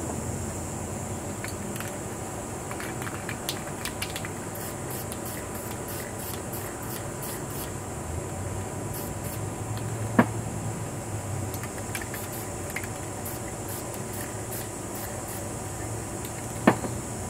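Aerosol spray-paint cans hissing in short, repeated bursts. Two sharp knocks, one about ten seconds in and one near the end, stand out as the loudest sounds.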